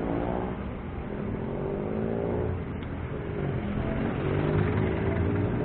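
Close city road traffic: a motor vehicle engine alongside, rising in pitch as it accelerates, twice, over a steady low rumble.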